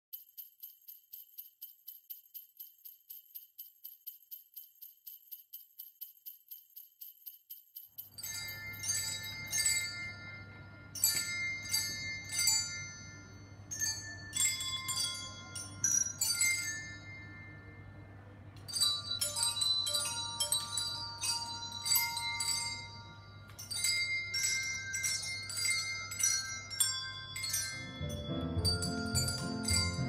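For the first eight seconds, small bells jingle in a fast, even rhythm. After that, a class of children rings small hand bells out of step, with many overlapping strikes and ringing tones. Lower notes join in near the end.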